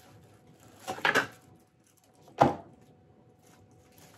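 A white cardboard phone box being pulled apart and handled: a short scraping slide about a second in, then a single sharp knock as the box is set down on a hard tabletop.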